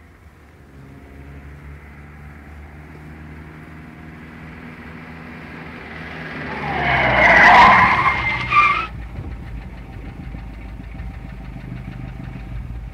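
A 1959 1.5-litre car with a worn engine approaching and braking to a stop, its brakes squealing loudly for about two seconds before cutting off sharply near nine seconds in. The engine then ticks over steadily at idle.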